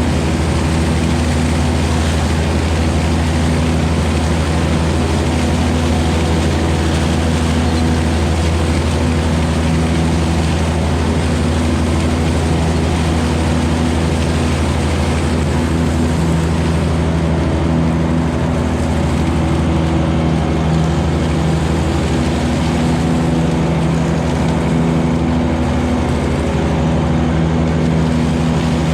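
John Deere 1025R compact tractor's three-cylinder diesel engine running steadily at a constant speed.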